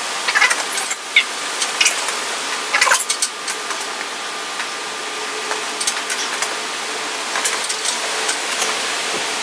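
Scattered light metallic clicks and knocks of a spanner and hands on a metal lathe during levelling adjustments, over a steady background hiss.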